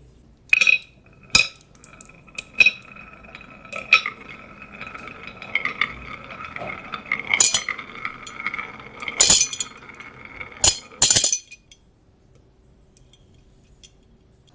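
Marbles rolling down a marble run, with repeated sharp clicks and clacks as they hit the track and each other over a steady ringing hum of rolling, stopping abruptly about 11 seconds in.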